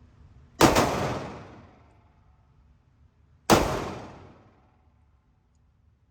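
Two gunshots about three seconds apart, the first about half a second in, each sharp crack followed by a short ringing echo that dies away over about a second.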